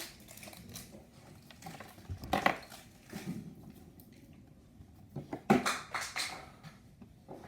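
Small items and their packaging being handled: a few short clicks and rustles, the loudest about two and a half seconds in and again about five and a half seconds in.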